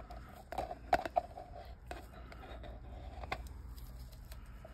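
Quiet handling sounds: a few light clicks and taps from a plastic mixing cup and a stir stick against a silicone resin mould, over a faint steady hum that stops about three seconds in.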